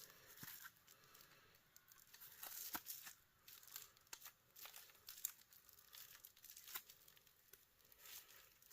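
Faint, irregular clicks and scrapes as stuck parts are worked loose while a heater is taken apart; the parts resist because they have been painted over.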